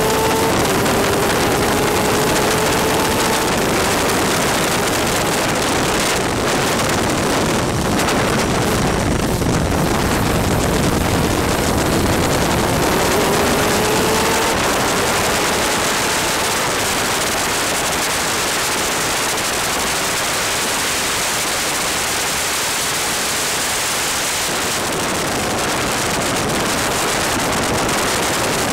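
Superkart at racing speed on a wet track, heard from onboard: a dense, steady rush of wind and water spray on the microphone, with the two-stroke engine's note rising faintly as it accelerates at the start and again about 13 seconds in.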